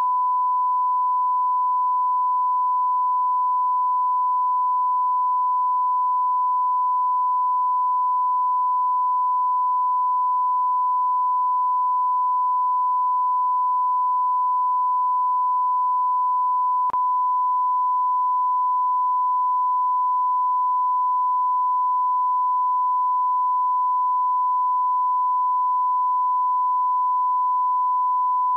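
Continuous 1 kHz sine-wave test tone, a steady pure beep at constant level: the line-up tone that goes with colour bars.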